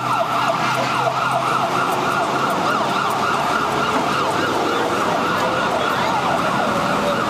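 Ambulance siren sounding a fast yelp, its pitch sweeping up and down about three times a second.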